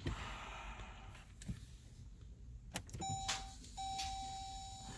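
2014 Jeep Grand Cherokee starter giving a single sharp click with no cranking as the start is tried, then a steady, high electronic warning tone from the car that breaks off briefly and resumes. The click with no crank points to a starter fault, which the owner puts down to a failing plug-in wire connector on the starter, corroded by moisture.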